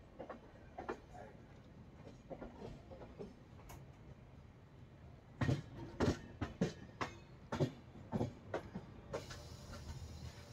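Express train's wheels clacking over rail joints in an irregular run of sharp clacks, loudest through the middle of the stretch, followed by a brief hiss near the end.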